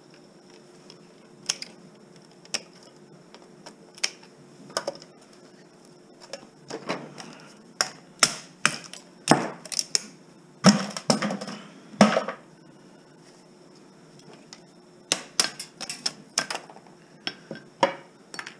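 Irregular clicks, knocks and clatter of hand tools and loose plastic and metal parts as a CRT television is taken apart to get the circuit board out. The taps come sparsely at first, then in a dense flurry about a third of the way in, a short lull, and another flurry near the end.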